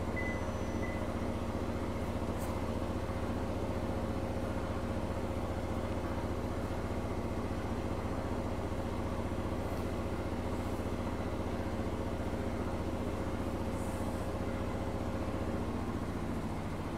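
A steady low mechanical hum with a faint held tone in it that stops near the end, and a few faint light ticks over it.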